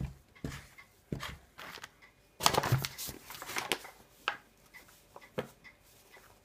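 A wooden spoon scrapes and knocks through stiff, heavy nut dough in a plastic mixing bowl, in separate strokes. About two and a half seconds in, a paper bag crinkles and rustles loudly as it is handled, followed by a few shorter crackles.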